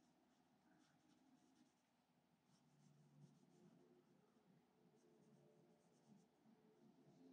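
Very faint scratching of a marker tip on stamped cardstock, a few short colouring strokes spread through otherwise near silence.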